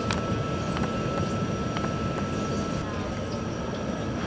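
Steady factory workshop machinery and ventilation rumble, with a faint steady high whine and a few light clicks.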